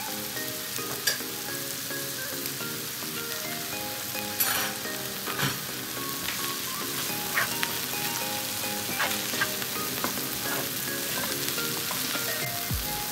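Vegetables stir-frying in a nonstick wok: a steady sizzle, with the wooden spatula scraping and knocking against the pan now and then. Background music with a melody plays underneath.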